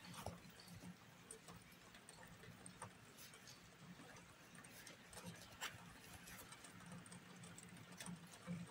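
Near silence, with faint scattered small clicks and taps from hands working chunky t-shirt yarn through the loops of the bag.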